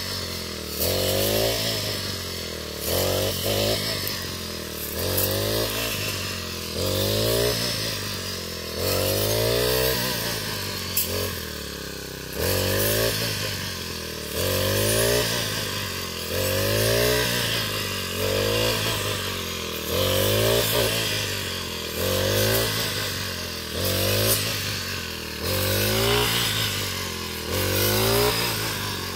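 Backpack brush cutter's small engine running hard while mowing wheat, its pitch rising and falling about every two seconds as each swing of the blade takes a bite of stalks, with a hiss of cut straw over it.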